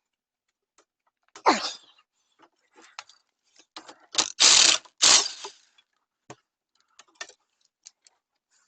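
Hand tools working on the front sway bar link nuts: ratchet-like clicks and metal tool clanks, with two louder, harsher bursts of about half a second near the middle.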